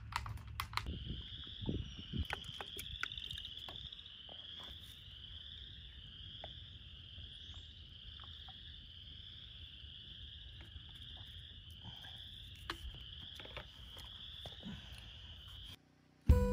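A steady, high-pitched chorus of calling frogs or insects, pulsing continuously, with a few light knocks and clicks in the first few seconds. It cuts off abruptly near the end, where acoustic guitar music begins.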